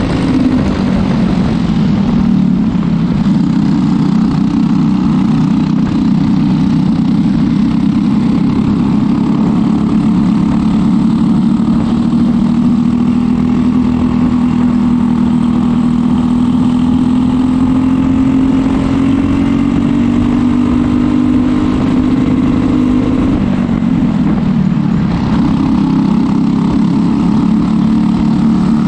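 Briggs & Stratton LO206 single-cylinder four-stroke kart engine running hard at racing revs, heard from on board the kart. Its pitch climbs slowly along a straight, falls about two-thirds of the way through as the kart slows for a corner, then rises again as it accelerates out.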